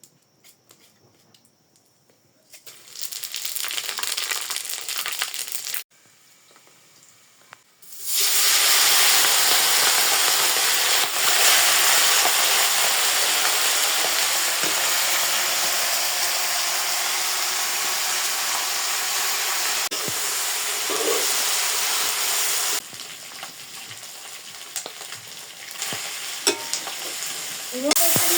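Chicken pieces sizzling as they fry in hot oil. The sizzle comes in briefly about three seconds in, stops, then returns much louder about eight seconds in and eases down near the end.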